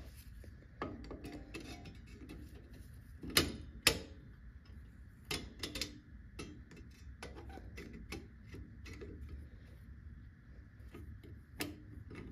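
Scattered metal clicks and taps of pliers against a rear drum brake's bottom return spring and shoe as they try to grip and unhook the spring, with two sharper clicks about three and a half and four seconds in.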